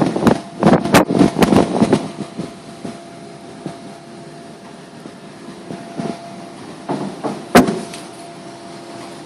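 A quick run of sharp clicks and knocks, handling noise from the cabin overpressure unit's housing, then a steady hum with a faint whine from the running system. A few more knocks come later, one sharp one about seven and a half seconds in.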